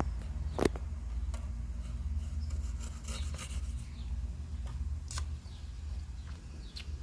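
Paintbrush strokes rubbing and scrubbing on wood and leaves, with scattered light knocks and taps as the children paint, over a steady low rumble.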